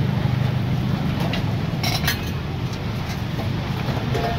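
Metal cooking utensils clinking against a flat roti griddle a few times, most sharply about two seconds in, over a steady low rumble.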